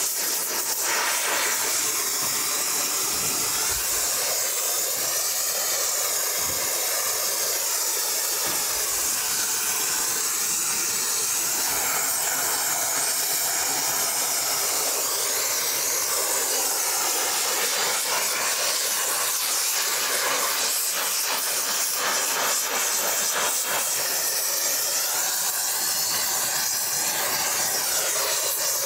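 Gas welding torch flame hissing steadily while it singes beef hooves on a grill, its tone wavering slowly.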